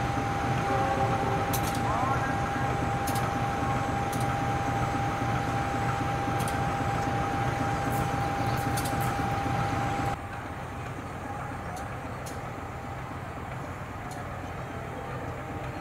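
Passenger train running through the station: a steady low rumble with scattered sharp wheel clicks and a steady high tone. About ten seconds in it cuts sharply to a quieter, steady rumble of an approaching CC 203 diesel-electric locomotive and its train.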